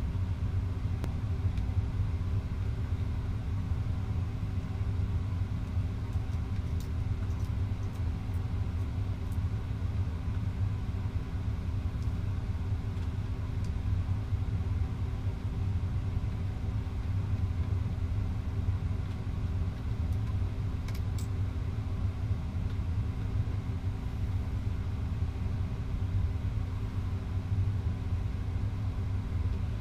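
Steady low rumble with a constant hum, broken by a few faint clicks.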